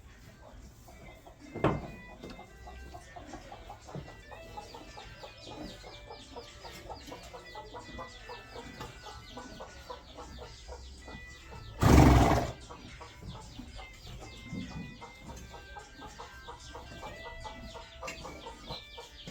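Chickens clucking in the background over faint music. There is a sharp knock about two seconds in, and a loud short burst of noise lasting about half a second around twelve seconds in.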